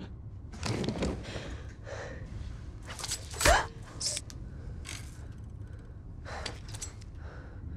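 A person's short, breathy gasps and exhalations during a fight, the loudest a sharp one about three and a half seconds in.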